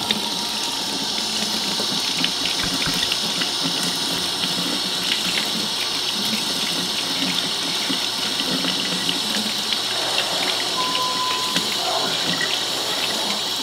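Kitchen faucet running in a steady stream into a stainless steel sink, splashing over hands rinsing and peeling the skin off a roasted green chile.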